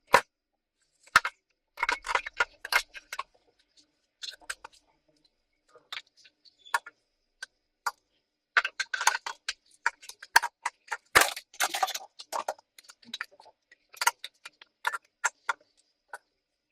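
Irregular small clicks, taps and brief scraping of a laptop's casing and parts being handled as it is closed up.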